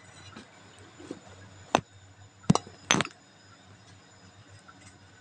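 Kitchenware clinking: a few sharp clinks of metal kitchen shears against a stainless steel bowl and a ceramic plate. The loudest three come close together in the middle.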